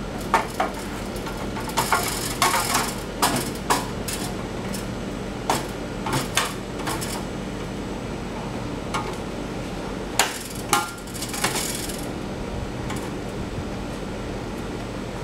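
Engine-bay panels of a Ferrari 360 Modena being set back into place by hand: scattered knocks, clacks and clinks, coming in clusters about two, six and ten seconds in.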